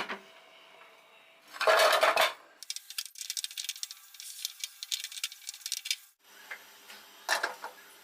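Kitchen clatter of pots and utensils: a loud clatter about a second and a half in, then a few seconds of dense, light, crackly rattling, and another short clatter near the end.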